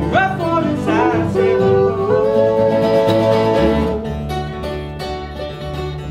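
A live acoustic string band playing a country-bluegrass tune: upright bass and strummed guitars under a sung melody that holds long notes in the first half. The bass line grows fuller about two thirds of the way through.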